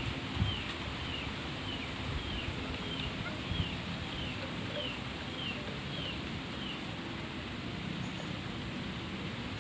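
A bird calling a steady series of short, arched high notes, just under two a second, stopping about two-thirds of the way through, over a low rustle of wind and vegetation.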